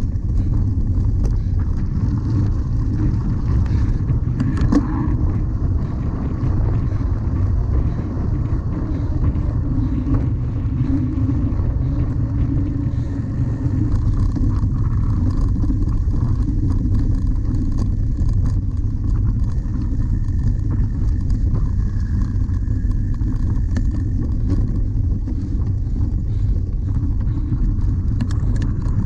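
Steady wind rumble on the microphone of a camera riding along on a cyclocross bike, mixed with the bike's rolling noise and a few faint knocks.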